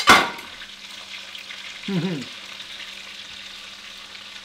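Chicken tenders frying in oil in a skillet, a steady sizzle. A loud sudden burst opens it, fading within half a second, and a short vocal sound comes about two seconds in.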